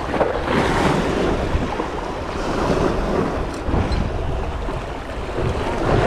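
Wind buffeting the microphone over the wash of a rough sea's waves.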